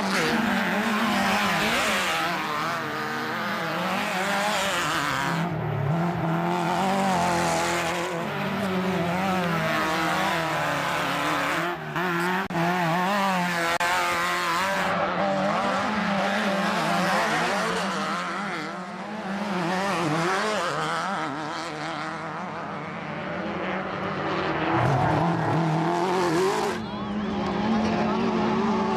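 Off-road race buggies' engines revving up and down as they pass one after another on a dirt course. The sound breaks off abruptly a few times and picks up again.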